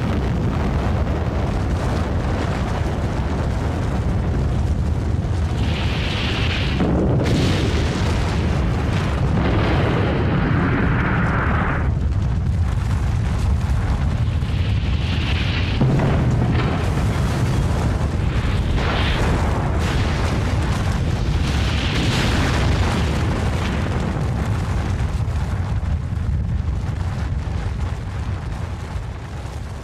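Atomic bomb explosion sound effect: a long, deep rumble with hissing surges that swell and die away several times, fading near the end.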